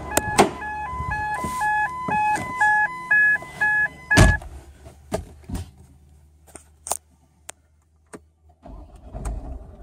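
A car's warning chime dings in an alternating two-note pattern, about three notes a second, until a car door shuts with a loud thud about four seconds in and the chime stops. A few clicks from inside the cabin follow. Near the end the engine is started with the push button and settles into a low idle.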